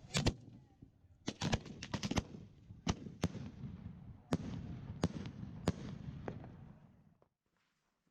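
Consumer fireworks going off: about a dozen sharp bangs, irregularly spaced, over a steady low noise. They stop abruptly about seven seconds in.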